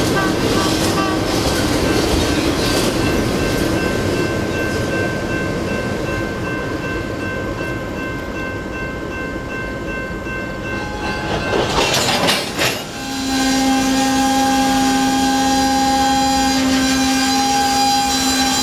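Freight cars rolling slowly with a rumble and faint wheel squeal. About twelve seconds in comes a short, sudden burst of air as a kicker puts the cars' brakes into emergency, then a steady shrill sound of several tones held together.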